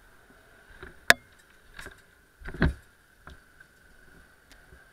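Footsteps and knocks as a worker climbs out of a van with a metal checker-plate floor: a few light knocks, one sharp click about a second in and a heavier thump a little past halfway, over a faint steady high tone.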